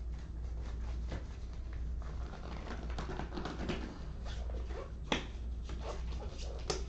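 Scattered small clicks and rustling over a steady low hum, with two sharper clicks, one about five seconds in and one near the end.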